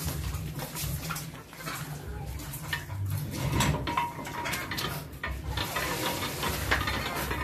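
Scattered metal clinks and knocks as the metal parts of a rice-noodle press and its pots are handled, over a low steady rumble. A faint steady whine comes in about six seconds in.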